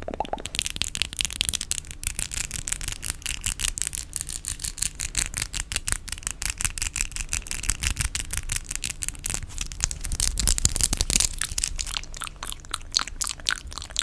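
ASMR fingernail tapping: a fast, dense run of light taps, many a second, in the rain-like pattern of a 'coconut rain' trigger.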